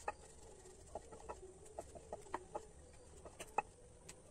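Faint, irregular short clucks of a hen, about a dozen in a few seconds.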